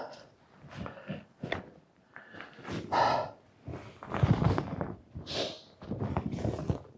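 A hiker's breathing and footsteps as he picks his way down a steep, rough grassy slope, in uneven bursts, with gusts of wind buffeting the unshielded microphone.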